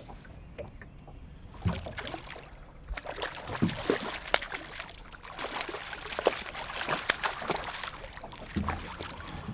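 A hooked trout thrashing and splashing at the surface beside the boat as it is played towards the landing net, in irregular bursts of splashes from a couple of seconds in.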